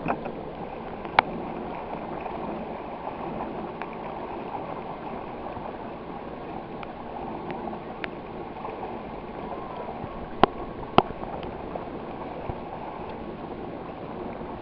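Water lapping and gurgling against a small craft's hull, with a few sharp knocks, two of them close together about ten seconds in.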